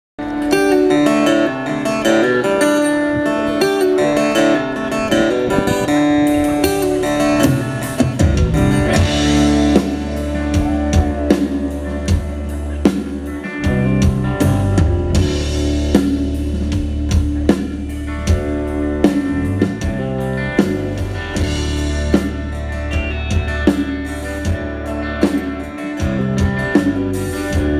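Live blues-rock band playing: electric and acoustic guitars over a drum kit. The bass end fills in about eight seconds in, giving a fuller band sound.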